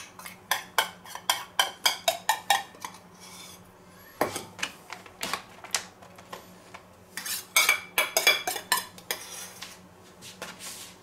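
A metal spoon clinking and scraping against a small stainless steel bowl while scooping out a thick paprika marinade. The clinks come in three quick runs: at the start, about four seconds in, and again about seven seconds in.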